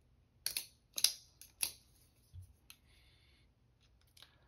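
Benchmade Bugout folding knife's blade being swung open and shut, a quick series of sharp clicks in the first two seconds as the blade snaps home and the bar lock engages, then a few fainter clicks. The blade's drop is being checked while the pivot tension is tuned.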